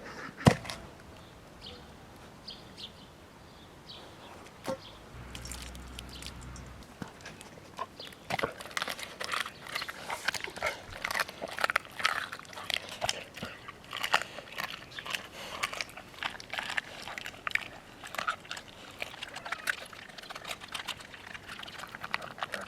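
Weimaraner eating raw dog food: a sharp knock about half a second in, then from about eight seconds in a dense, irregular run of chewing and crunching.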